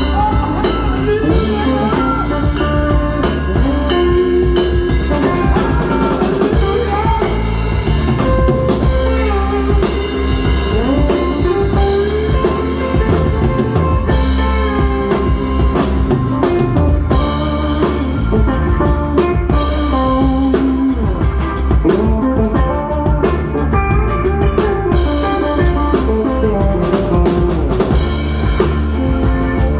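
Live band playing: a drum kit keeping a steady beat with snare and cymbals, a lead electric guitar bending notes, and a bass guitar underneath.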